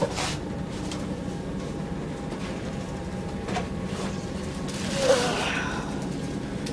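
Steady running rumble of a moving train, heard from inside the carriage, with a few light clicks and a short, louder sound about five seconds in.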